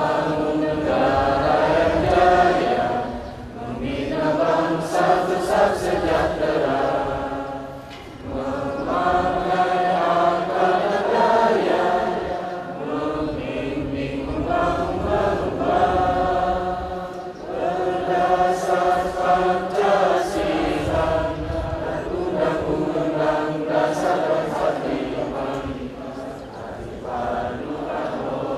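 A large assembly singing a song together in unison, led by a conductor, in phrases with short breaks between them.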